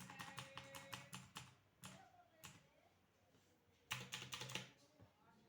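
AULA mechanical keyboard being typed on: a quick run of key clicks in the first second and a half, a few single keystrokes, then another fast flurry about four seconds in.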